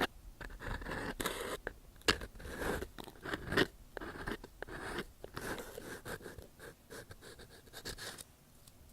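Ear pick scratching and scraping right at a TASCAM DR-40 recorder's microphones: a dense, crackly run of scrapes and sharp clicks that stops shortly before the end.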